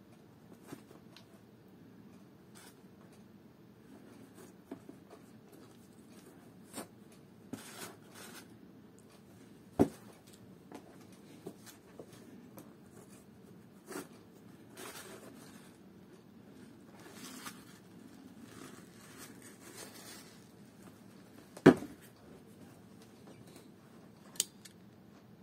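Leather boots being handled and turned over: scattered light rustles and small clicks, with two sharp knocks, one about ten seconds in and a louder one near the end.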